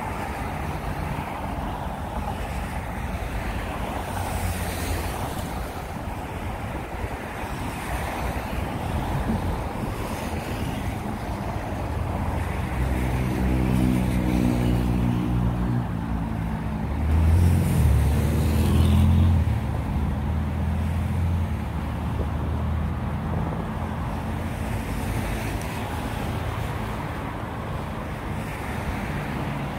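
Steady road traffic noise, with a heavy vehicle's engine passing close: it builds from about twelve seconds in, is loudest around eighteen seconds, then fades back into the traffic.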